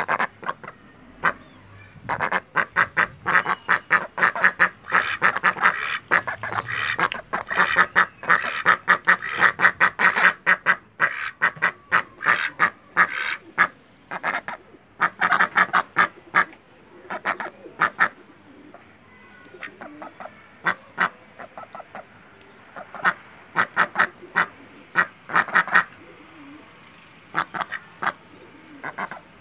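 Several white domestic ducks quacking in rapid runs of short calls, often overlapping. The calls come thickest through the first half, then in looser clusters with short pauses, thinning out near the end.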